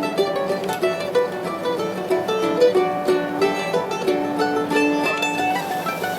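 Background music played on plucked string instruments: a quick, steady run of picked notes.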